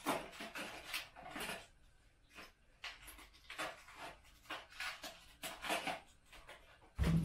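Small plastic hardware packets and paper rustling and crinkling as they are handled and sorted, in short irregular bursts, with one dull thump about seven seconds in.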